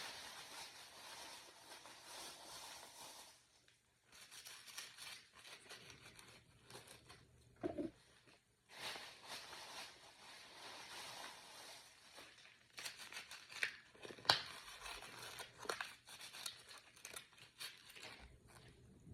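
Plastic packaging crinkling and rustling in stretches of a few seconds as it is handled, with scattered sharp clicks.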